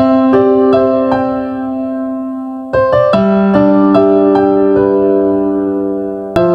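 Keyboard music, an electric piano sound: slow held chords built up note by note, with a new chord struck about three seconds in and another near the end.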